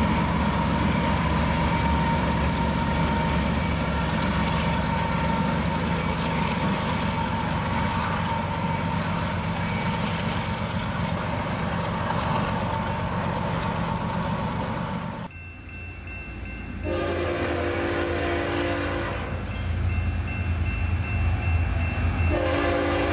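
A BNSF diesel freight train with covered hopper cars rolling past, its locomotive engine and wheels on the rails making a steady heavy rumble. About fifteen seconds in the sound cuts to an approaching train sounding its locomotive horn in a long blast and then a second one near the end, over a low rumble.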